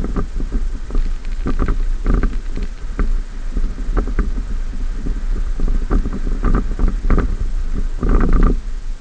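2014 Ford F-150 pickup driving over rough, rutted beach sand: a constant low rumble with frequent irregular knocks and rattles as it jolts along, the loudest jolts about eight seconds in.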